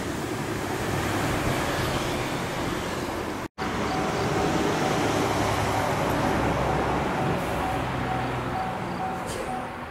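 Railway level crossing warning bell ringing in a steady repeating pulse over road traffic noise. Before it, the rumble of a train that has just passed, broken off by a brief dropout about three and a half seconds in.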